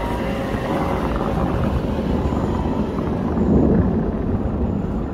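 Car engine running under load as the car works its way out of deep snow, swelling briefly about three and a half seconds in.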